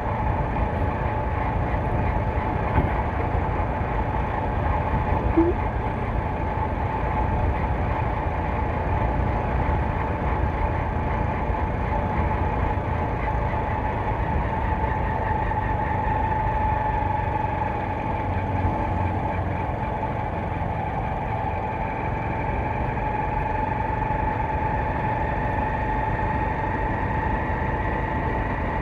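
TVS Sport single-cylinder commuter motorcycle running steadily at cruising speed, heard from the rider's position as a continuous low rumble with a steady hum above it.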